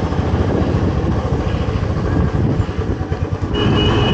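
Royal Enfield Classic 350's single-cylinder engine running under way, with the steady low thump of its exhaust. A short high-pitched steady tone sounds near the end.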